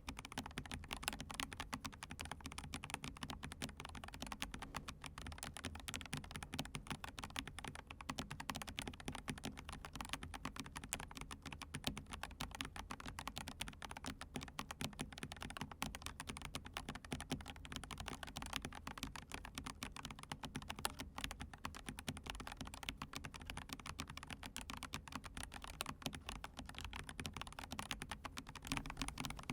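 Continuous fast typing on a full-size hot-swap custom mechanical keyboard (Monstargear Ninja108 PRO) fitted with Gazzew Boba U4T non-clicky tactile switches and PBT keycaps: a dense, even run of key strikes with no click.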